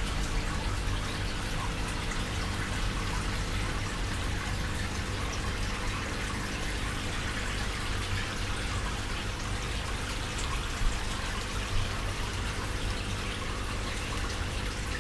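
Steady trickling and splashing of water in a goldfish tank from its filter, over a low steady hum. Two short knocks, about a second apart, come a little past two thirds of the way through.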